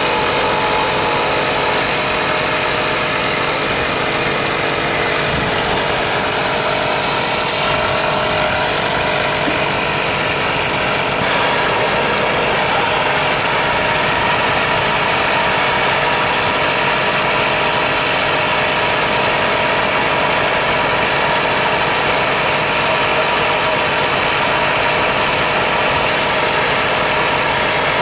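A machine running steadily and loudly: an even hiss with a few steady tones and no breaks.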